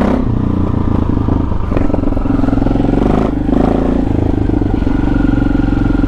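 KTM 640 Adventure R's single-cylinder engine pulling away and running steadily under way.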